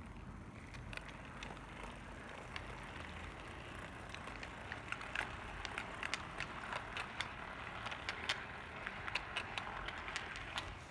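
HO scale brass model steam locomotive and its passenger coaches rolling past on metal track: a faint steady whirr of the drive gears and wheels, with irregular light clicks of metal wheels on the rails that come thicker in the second half.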